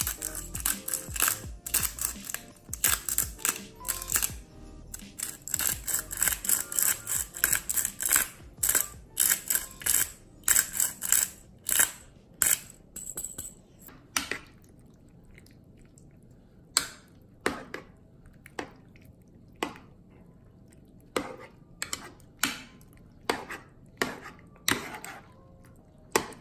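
A pepper mill grinding over the pan at the start, then a metal utensil stirring thick, creamy short pasta in a nonstick saucepan, knocking and scraping against the pan in sharp clicks. The clicks come thick and fast at first and grow sparser after about fourteen seconds.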